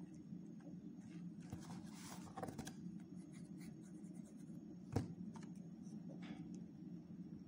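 Faint rustling and rubbing of hands pressing glued wooden ice-cream sticks onto a paper book page, with one sharp tap about five seconds in, over a low steady hum.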